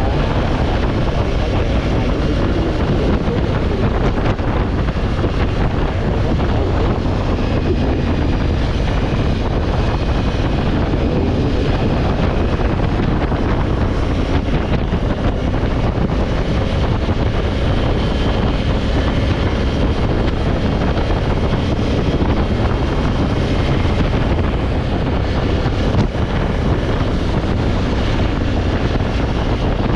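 Honda Africa Twin's parallel-twin engine running steadily under way, with wind buffeting the microphone.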